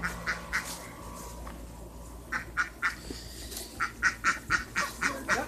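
Domestic ducks quacking: a few short calls, then from about two seconds in two quick runs of quacks at about four to five a second.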